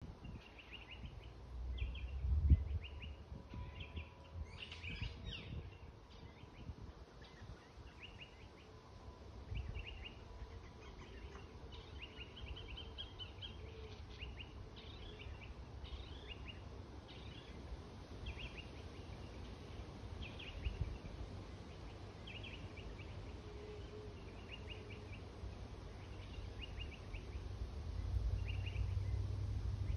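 Small birds chirping repeatedly in short high calls, about one a second, with one fuller call about five seconds in. Underneath runs a low rumble that swells sharply about two and a half seconds in and again near the end.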